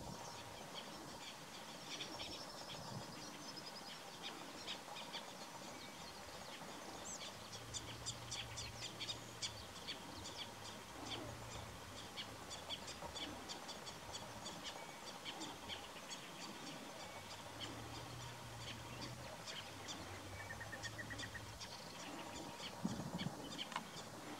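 Small birds chirping: a dense run of short, high chirps and ticks, with a faint low hum that comes and goes.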